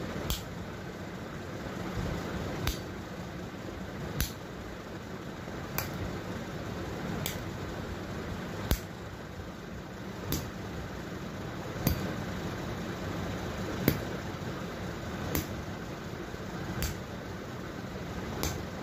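A thin stick striking the sole of a bare foot (bastinado), one sharp smack about every second and a half, about a dozen in all, over a steady low hum.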